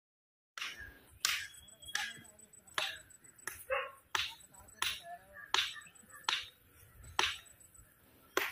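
Sharp, regular clicks about every three-quarters of a second, starting abruptly about half a second in, with a faint steady high-pitched tone behind them.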